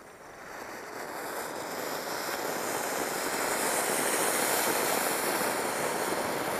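Anar (flowerpot) firework fountain spraying sparks with a rushing hiss that builds up over the first two seconds, then holds steady.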